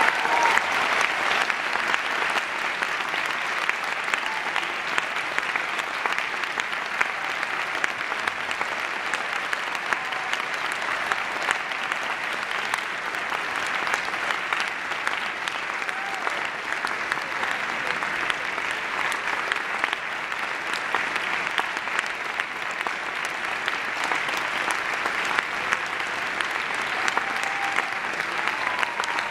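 Audience applauding: dense, steady clapping that keeps on evenly throughout.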